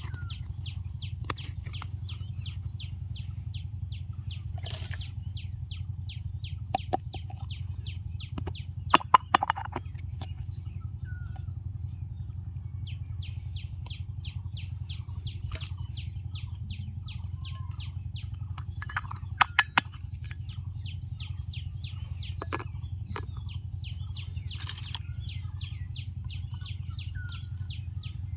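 Sharp clicks and taps of plastic toy pieces being handled, a few at a time, over a steady low hum. Through most of it runs a train of rapid high chirps, about three or four a second, that pauses for a few seconds near the middle.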